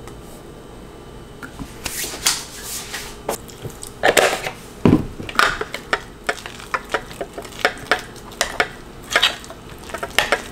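Metal spoon stirring oatmeal and protein powder in a glass bowl, clinking and scraping against the glass in quick, irregular strokes, with one heavier knock about five seconds in.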